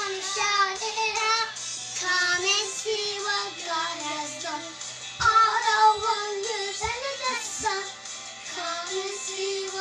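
Young girls singing along to a pop song, with the recorded backing music playing under their voices. A few low thumps come in the second half.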